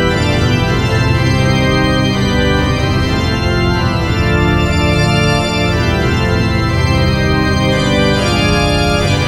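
Background music of held, organ-like chords with a strong bass, changing every couple of seconds.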